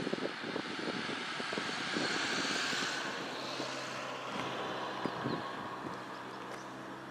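A passing engine: a broad rushing noise swells to its peak about two to three seconds in and then fades, leaving a steady low hum, with wind buffeting the microphone in the first second.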